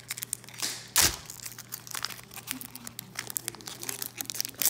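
Foil wrapper of a Pokémon trading-card booster pack crinkling as it is torn open and handled, with one sharp, loud tear about a second in.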